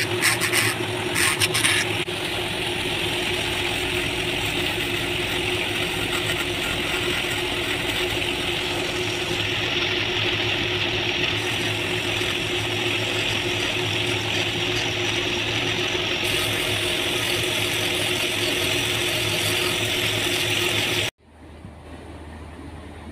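Handheld pen-style rotary tool running steadily with a constant whine, its bit grinding into a small wooden piece, with scratchy bursts of contact in the first couple of seconds. The sound cuts off abruptly near the end, leaving only a faint low hum.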